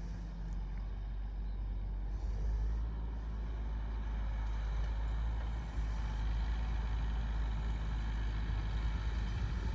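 Tractor engine running steadily while pulling a plough, with wind rumbling on the microphone.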